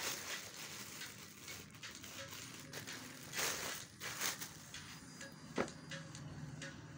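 Thin plastic bag crinkling and rustling as jeans are pulled out of it, with two louder rustles around three and a half and four seconds in and a sharp click a little later.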